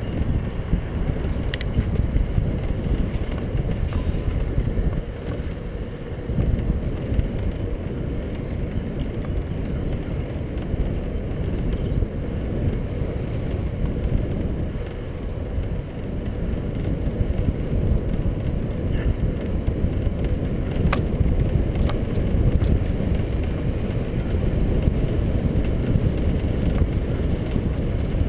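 Steady low rushing of a bicycle ride on asphalt: wind on the microphone mixed with tyre rumble, with two faint clicks.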